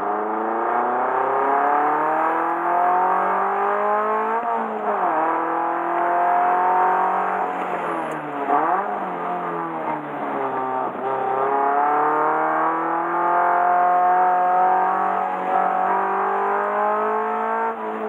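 Subaru BRZ's flat-four engine driven hard at track pace. The revs climb steadily through a gear and fall sharply about four and a half seconds in, then dip twice around eight to nine seconds as it slows and downshifts. After that they climb again in long pulls.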